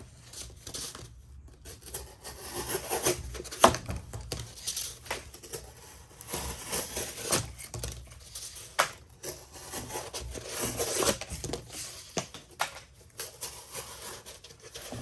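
Slip joint pocketknife blade sawing and tearing through double-layer corrugated cardboard in repeated rasping strokes under heavy pressure, the cardboard flexing and crinkling. A few sharper tears stand out, the loudest about four seconds in.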